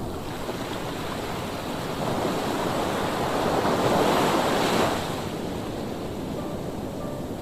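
Sea waves breaking against the stones of the shore: a wave swells in about two seconds in, is loudest around four seconds, and falls away a second later into the steady wash of surf.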